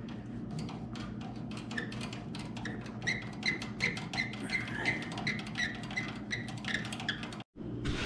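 Light ticks and clicks of hands turning and unscrewing a threaded clutch pushrod from its clevis at the pedal. Through the middle there is also a run of short, high chirps, about three a second.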